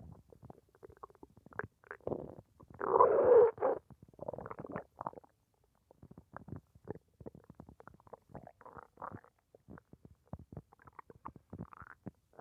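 Human stomach gurgling and rumbling while digesting a meal: a run of small pops and crackles, with the loudest gurgle about three seconds in and another shortly after.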